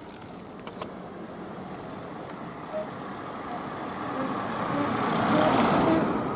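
A road vehicle passing close by, its noise swelling to a peak about five and a half seconds in and then fading.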